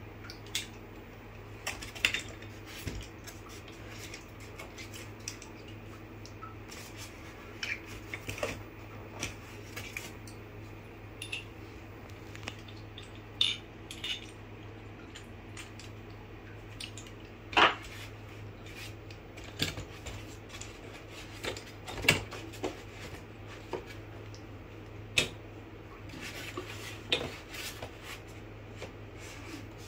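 Metal parts of a boom-stand microscope handled by hand: irregular clinks and knocks as the steel rod and its metal clamp block are worked and set down. A steady low hum runs underneath.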